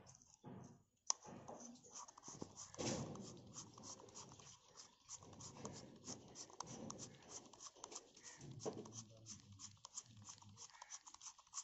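Rubber-gloved hands handling small brass binoculars: faint rubbing and scratching with many small light clicks, and one sharper click about a second in.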